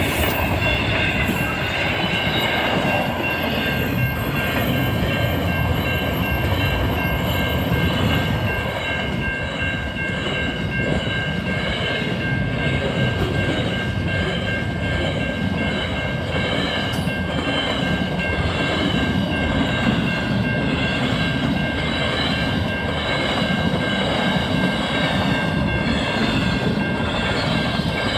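Loaded container flat wagons of a long freight train rolling steadily past close by, with the rumble and clatter of their wheels on the rails. A steady high-pitched ringing from the wheels runs over it.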